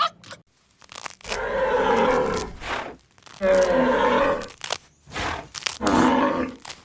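A large animal calling loudly three times in a row, each call drawn out for about a second and a half with short pauses between.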